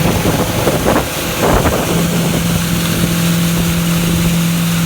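Motorboat engine running with a steady low hum as the boat cruises, under wind rushing over the microphone that is strongest in the first couple of seconds.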